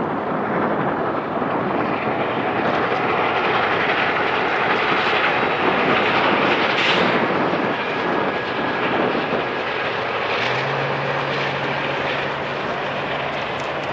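A passenger train passing close by: two trailing Amtrak diesel locomotives run past, then the passenger cars roll by with steady wheel-and-rail noise and a few light clicks. A low steady hum comes in about ten seconds in.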